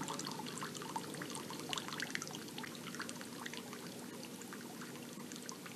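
Faint trickling water, with many small drips.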